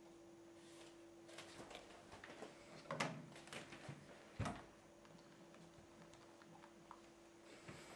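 Small handling noises: a run of rustles and light clicks with two sharper knocks, about three and four and a half seconds in, then only a few faint clicks, over a faint steady hum.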